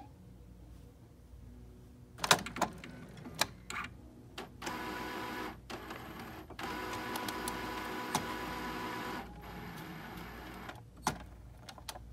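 Epson inkjet printer running its power-on initialisation: a few sharp mechanical clicks, then the print-head carriage motor whirring with a steady whine for about four seconds, broken twice by brief pauses. It ends in a quieter run and one more click near the end.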